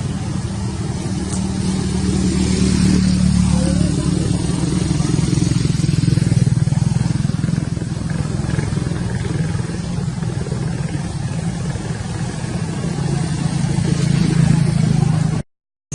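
A motor engine running steadily with a low drone, cutting off suddenly near the end.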